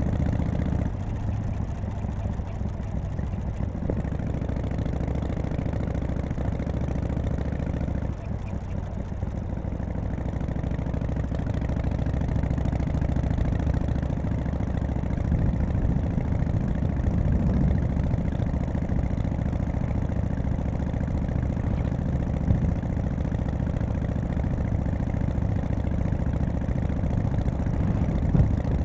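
1991 Harley-Davidson Softail FXSTC's Evolution V-twin running on a test ride, its note dropping about eight seconds in and building again over the following seconds.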